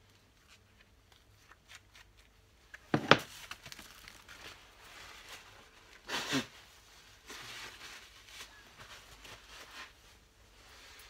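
Handling noises at a workbench: rustling and small clicks, with two louder scraping bursts about three and six seconds in. No drill motor runs.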